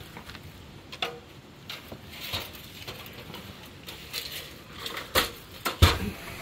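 Scattered light knocks and clatter, with two louder thumps about five and six seconds in.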